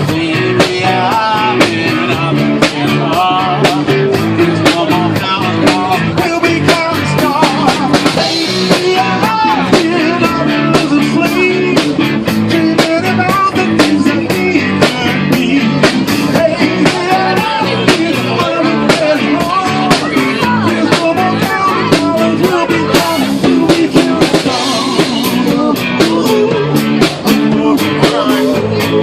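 Loud rock music with guitar, a drum kit keeping a steady beat, and singing.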